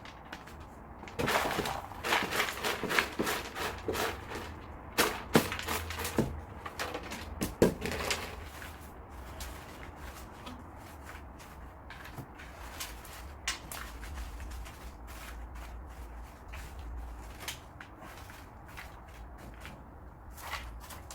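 Wooden tree roots being handled and knocked against each other as they are fitted together, with busy clicks and knocks for about the first eight seconds, then only a few light taps over a low hum.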